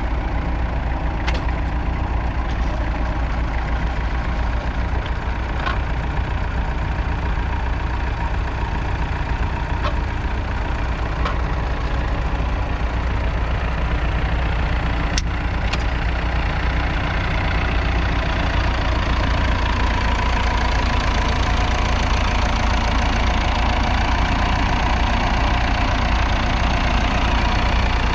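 Massey Ferguson 65 tractor's 3.3-litre four-cylinder diesel engine running steadily, with a few sharp clicks in the first half. It grows a little louder in the second half.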